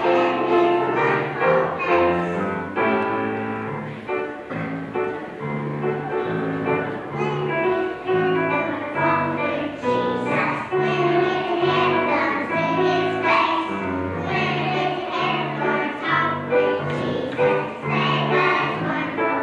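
A choir of young children singing a song with instrumental accompaniment that has a repeating bass line.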